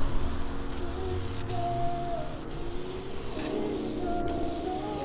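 Aerosol can of Dupli-Color vinyl and fabric spray paint hissing in passes, the hiss breaking off briefly a few times. Background music with a melody plays underneath.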